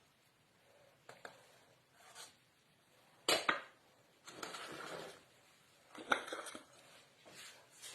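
Kitchenware handling: a few sharp knocks of a utensil against a dish, the loudest about three seconds in and another about six seconds in, with a second of scraping between them.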